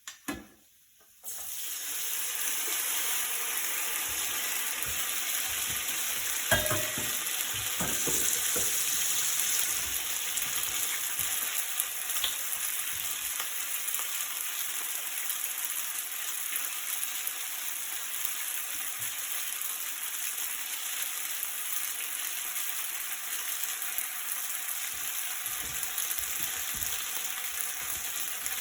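Food sizzling in a hot frying pan. The sizzle starts suddenly about a second in, after a couple of clicks, and keeps a steady hiss, with a few knocks of a utensil against the pan as it is stirred.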